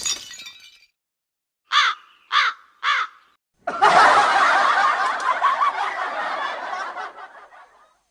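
Comedy laughter sound effect: three short, falling "ha" calls, then a burst of many people laughing together, like a laugh track, that fades away over about four seconds.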